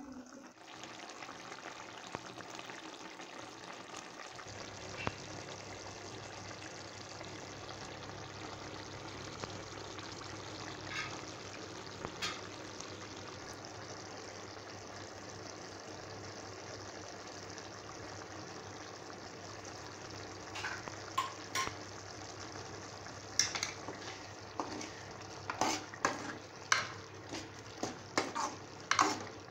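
Watery mushroom gravy bubbling and sizzling steadily in an aluminium kadai. In the last several seconds a steel ladle stirs it, with repeated knocks and scrapes against the pan.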